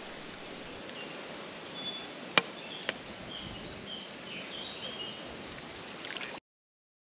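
Outdoor ambience: a steady background hiss with faint high bird chirps and two sharp clicks about half a second apart, a little over two seconds in. The sound cuts off suddenly shortly before the end.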